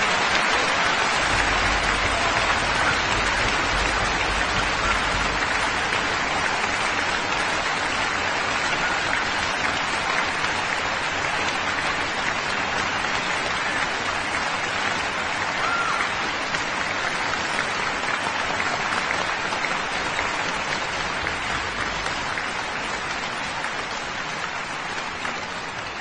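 Concert hall audience applauding steadily after a performance, the clapping slowly dying down toward the end.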